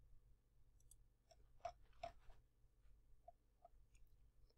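Near silence: faint room tone with a few soft, short clicks scattered through it.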